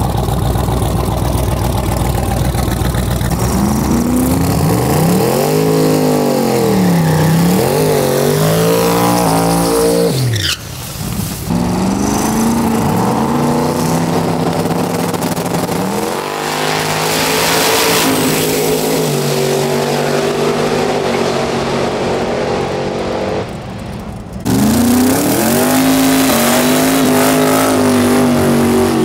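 Drag-racing car engines revving up and down at the starting line, with one car speeding away in a fast drop of pitch about ten seconds in, then steady engine running. Near the end an engine holds steady at high revs through a tire-smoking burnout.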